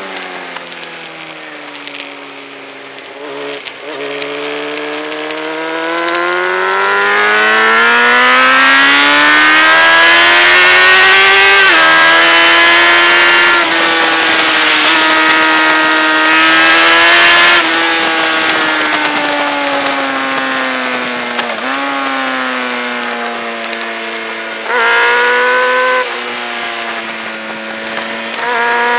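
Motorcycle engine at track speed. The revs sag at first, then climb steadily for several seconds to a gear change about twelve seconds in, and hold high with loud wind rush. They then fall through a series of downshifts and pick up again near the end.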